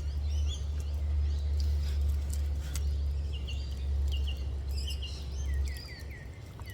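Small birds chirping with short calls, ending in a run of quick falling chirps, over a low steady rumble that drops away near the end.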